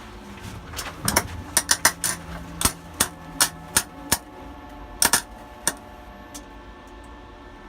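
Harbor Freight wire-feed welder's arc striking in about a dozen sharp, irregular pops and cracks rather than a steady crackle, as the wire makes and breaks contact with the metal, over a steady low hum.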